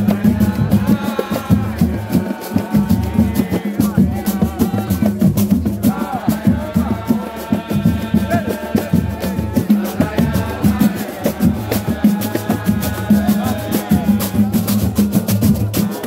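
Live samba played in a roda de samba: voices singing over cavaquinho, pandeiro and hand drums, with a dense, steady percussion beat.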